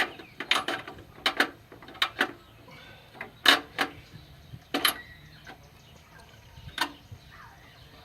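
Sharp metal clicks and knocks, mostly in quick pairs about once a second: a spark plug socket and extension being worked down onto a spark plug in a cramped spot on a VW Beetle's air-cooled engine, knocking against the plug and the metal around it.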